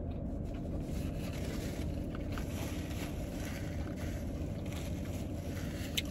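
Steady low rumble inside a car cabin, with soft chewing and rustling of a paper sandwich wrapper over it; a sharp click near the end.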